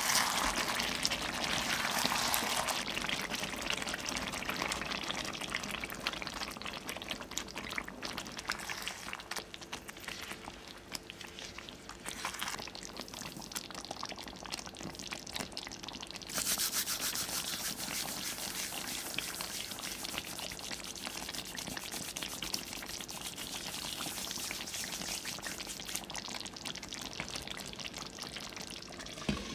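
Chicken simmering in sauce in a nonstick pan, bubbling and sizzling, with a spatula stirring through it early on. The bubbling grows louder a little past halfway, and a brief knock comes right at the end.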